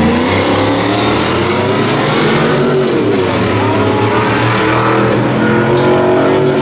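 Two pickup trucks' engines revving hard as they launch together from a standing start and accelerate away, the pitch climbing, falling back briefly and climbing again.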